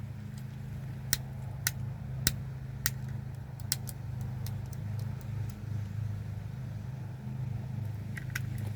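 Sharp clicks from a fidget pad's buttons and switches being pressed, about five spaced out over the first four seconds and a few more near the end, over a steady low hum.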